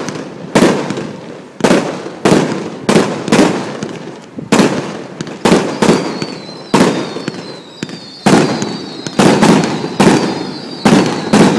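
Aerial fireworks shells bursting in rapid succession, about one to two loud bangs a second, each trailing off before the next.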